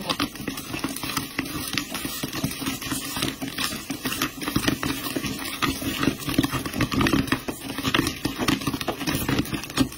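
Popcorn popping in a glass-lidded frying pan that is being shaken over the flame. Rapid, irregular pops and clicks mix with kernels rattling against the pan and lid.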